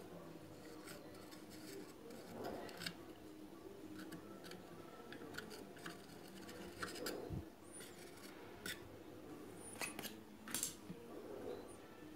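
Faint scattered clicks and light metallic taps from small hand tools working on an amplifier circuit board, with a few sharper clicks about seven seconds in and twice around ten seconds in.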